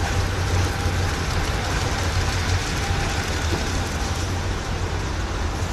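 Steady low rumble of a diesel train, heard from inside a passenger carriage with the window open.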